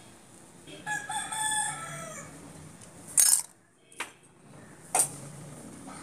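A rooster crowing once, a pitched call of just over a second that falls away at its end. Then three sharp clicks about three, four and five seconds in, the first the loudest.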